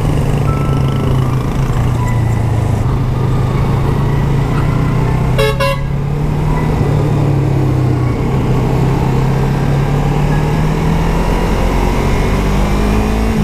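Yamaha MT-03's parallel-twin engine running steadily under a rush of riding wind, its pitch shifting slightly with speed. A vehicle horn honks once, briefly, about five and a half seconds in.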